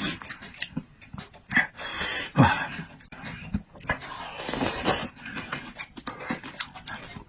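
Noisy eating: slurping, chewing and sharp, heavy breaths in uneven bursts.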